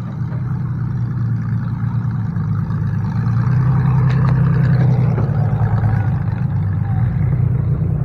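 Demolition derby cars' engines running in the pits, one car driving past close by, loudest about four to five seconds in.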